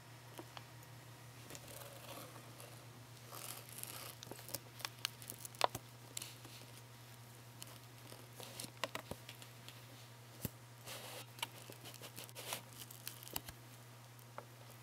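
Irregular rustling and scratching of fabric with scattered sharp little clicks, as a baby capybara moves about over blankets and a play mat and noses into the corner; a low steady hum sits underneath.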